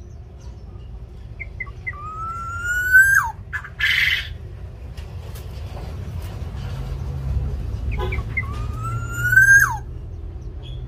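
Black-naped oriole (kepodang) giving two long whistled calls about six seconds apart, each rising slowly and then dropping sharply at the end. A short harsh burst comes between them, over a steady low background rumble.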